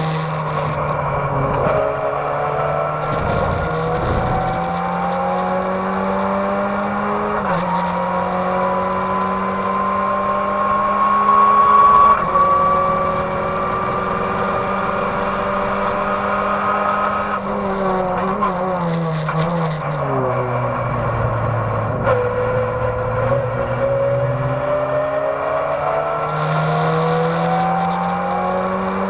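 Race car engine heard from inside the stripped cabin, driven hard around a circuit: the engine note climbs, drops at an upshift about seven seconds in and climbs again to a peak. It then falls away under braking and downshifts around eighteen to twenty seconds in, before rising again as the car accelerates.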